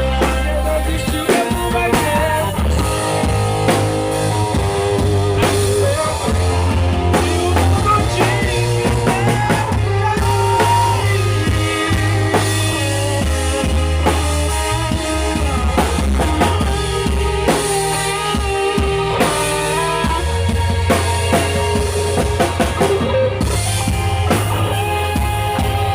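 Live band playing a gospel song's instrumental passage: drum kit, bass and guitar carrying a steady beat, with a sustained lead melody line over it.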